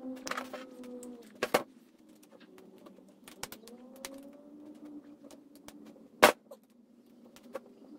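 An Allen key clinks and knocks against the metal cap of a Porter-Cable finish nailer as its screws are turned back in, with two sharp knocks, about a second and a half in and about six seconds in. Behind it a pigeon coos, a low wavering call.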